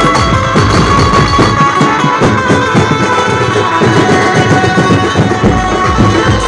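Loud dance music with a fast, dense drum beat. The deep bass drops out about two seconds in and comes back near the end.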